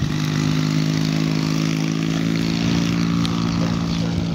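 Engine of a giant-scale RC model WWI German monoplane running at a steady speed, with an even, unchanging pitch.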